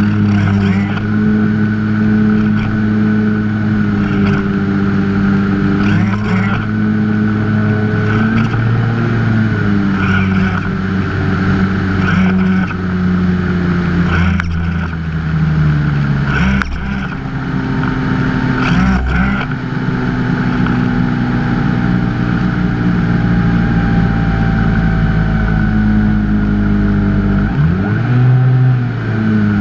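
Electric motor and propeller of a Skyhunter FPV plane running in flight, picked up by the onboard camera; the motor pitch steps up and down with the throttle, with a quick dip and rise near the end.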